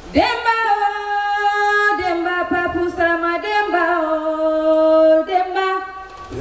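A single voice singing without accompaniment, holding long notes that slide and waver between pitches, with a short break about two seconds in and another near the end.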